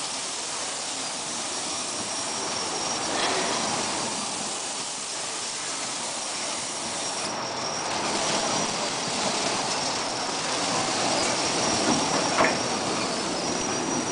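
Automatic pallet stretch-wrapping machine running: a steady mechanical clatter with a faint high whine, and a couple of brief clicks, one a few seconds in and one near the end.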